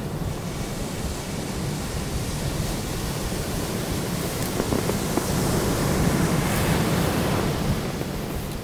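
Ocean surf breaking and washing up a beach: a steady rush that swells a little past halfway and eases near the end, over a low rumble of wind on the microphone.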